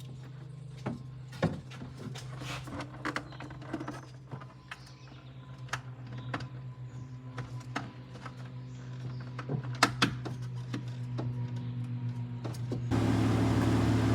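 Irregular clicks and knocks of plastic trim and taillight parts being handled and refitted, over a steady low hum. Near the end a louder steady running sound comes in.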